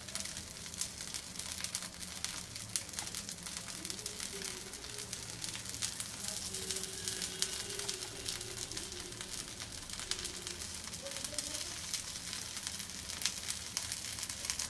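Ghee sizzling and crackling in a non-stick appe pan over a low gas flame as it is brushed around the cooking sabudana vada balls: a steady fine crackle, with a low steady hum underneath.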